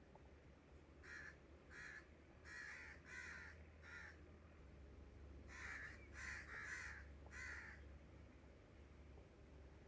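Crows cawing faintly: a series of short harsh caws, one run in the first half and a closer-spaced run a little past the middle.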